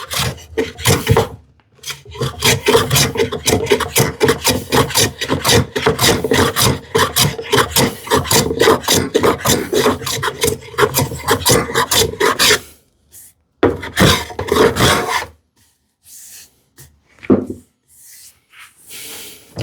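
A small hand plane taking short, rapid strokes along the curved edge of a wooden workpiece, about three or four strokes a second, cleaning it up to a marked line. The strokes stop about 12.5 s in, then a second short run follows, and a few faint scrapes come near the end.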